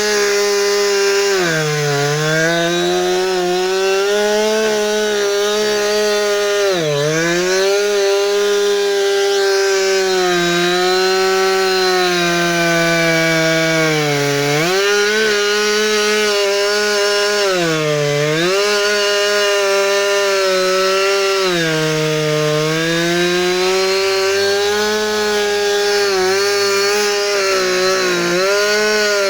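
Husqvarna 359 two-stroke chainsaw running at full throttle while cutting firewood. Its pitch dips briefly about five times as the chain bogs down in the wood, then climbs back each time.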